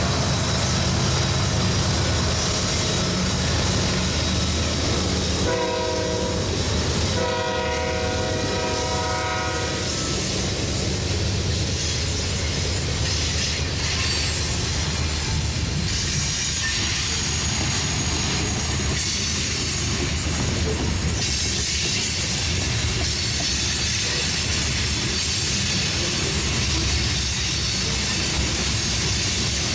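Diesel freight locomotives rumble past, then a train horn sounds twice about six seconds in: a short blast, then a longer one of several notes. After that, freight cars roll by with steady wheel-on-rail noise.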